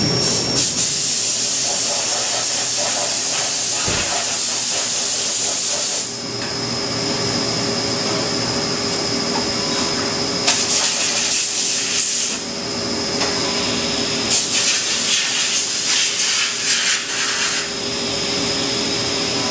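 Haas CNC milling machine running a cut in aluminum: a steady high-pitched whine over the machine's hum, with loud hissing in three long spells.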